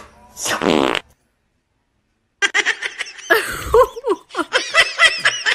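A short raspy, fart-like noise about half a second in, then silence, then a person laughing in repeated bursts from about halfway through.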